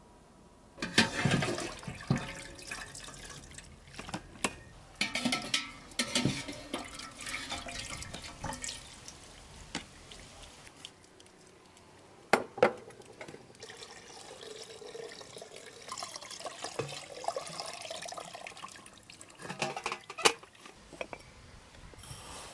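Liquid splashing and dripping as curds are handled in plastic cheese-mould baskets, with irregular sharp knocks of plastic and metal trays, the loudest about a second in and near the middle.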